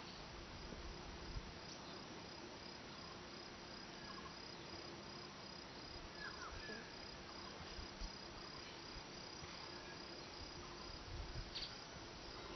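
Faint outdoor ambience: a steady high insect trill pulsing evenly, with a few faint short bird chirps about six seconds in.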